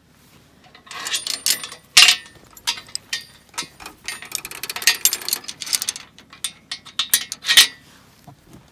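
A chain rattling and clinking as a chained metal farm gate is undone and handled, with sharp metal clanks of the gate among it; the loudest clanks come about two seconds in and again near the end.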